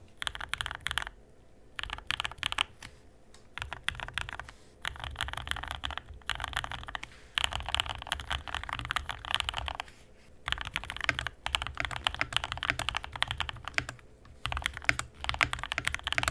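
Typing on a Yunzii KC-68 mechanical keyboard fitted with freshly hand-lubed Gateron Silver linear switches: fast, dense key clacks in runs of a few seconds with short pauses between. A very poppy sound, which may be heightened by the tape mod on the board.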